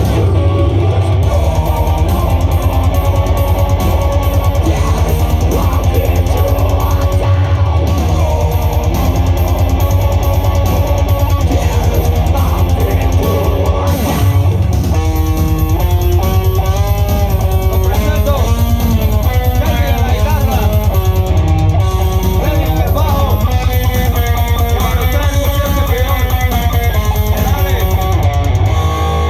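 Rock band playing an instrumental passage: electric guitars over a drum kit keeping a fast, steady beat, with a guitar melody line moving around from about halfway through.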